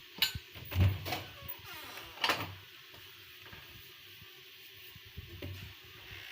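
Kitchen handling sounds around a pot of freshly steamed pulao: three short scrapes or rustles with low knocks in the first two and a half seconds, then only faint background.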